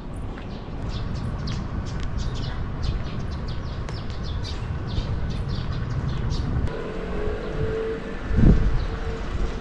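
Outdoor street ambience: a steady low rumble with many short, high bird chirps over the first two-thirds, then a passing vehicle with a steady hum that swells loudest about a second before the end.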